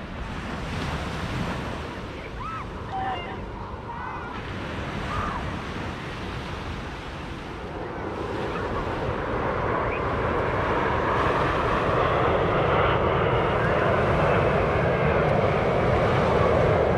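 Small waves breaking and washing on a sandy shore, with wind buffeting the microphone; the rushing noise swells and grows louder about halfway through.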